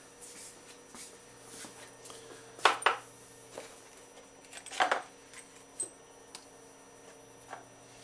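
Sharp metal clinks and clatter of a grease tin and tools being handled on a workbench as the tin is opened: two loud clinks about two and a half seconds in, another cluster near five seconds, then a few lighter ticks.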